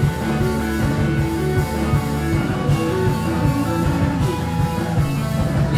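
Rock band playing live: electric guitar, bass guitar and a drum kit with cymbals, a full steady wall of sound.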